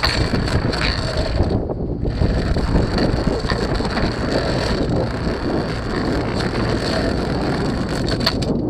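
Steady wind buffeting the microphone over the rush of water along a sailboat's hull, with a few light clicks near the end.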